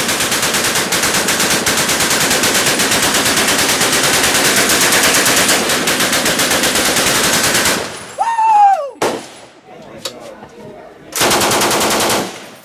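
Browning .30-calibre belt-fed machine gun firing .30-06 rounds in one long full-auto burst of about eight seconds. A short falling whoop from a person follows, and near the end comes a second, shorter burst of automatic fire.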